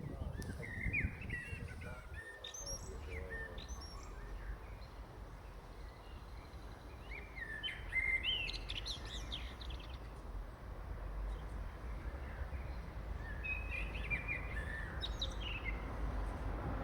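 Songbirds chirping and singing in three short bouts of quick, high twittering notes, over a steady low background rumble.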